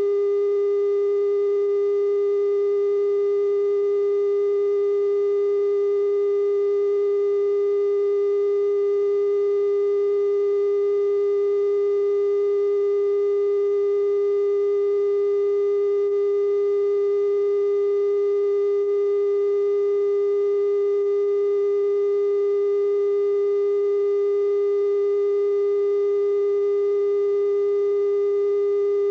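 Steady 420 Hz broadcast test tone sent with color bars while a TV station is off the air after sign-off: one unbroken pitch at a constant level, with faint higher overtones.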